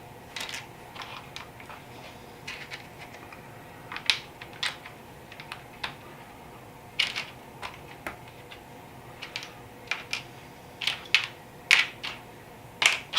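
Plastic LEGO bricks clicking and clattering as pieces are handled and pressed together, in irregular sharp clicks that come in small clusters.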